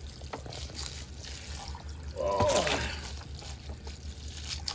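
Water splashing and trickling in a fish cooler as a crevalle jack is put in with the catch.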